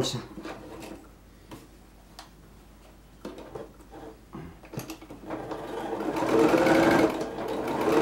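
Domestic electric sewing machine stitching. After a few seconds of soft handling clicks, the motor starts about five seconds in and speeds up with a rising whine, stops briefly, then starts and speeds up again.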